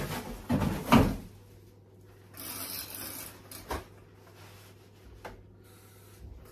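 Kitchen handling noises while fetching a cloth: a few knocks and thumps in the first second, a short rushing noise about two and a half seconds in, then a couple of light clicks.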